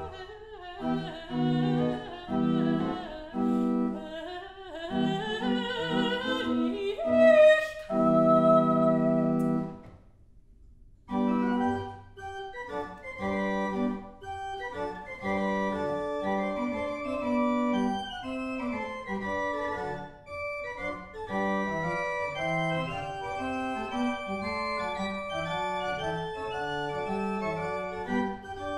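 Soprano singing with pipe organ accompaniment, ending on a long held chord. After a short pause about ten seconds in, the pipe organ plays on alone in steady, flowing notes.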